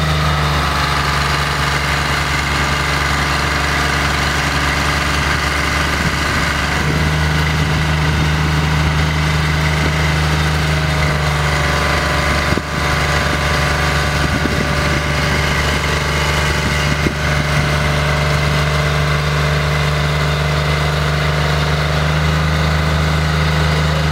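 An engine idling steadily, with a steady higher whine over it, running the hydraulic casing jacks as they pull stuck wellhead slips. The sound dips briefly about half-way through.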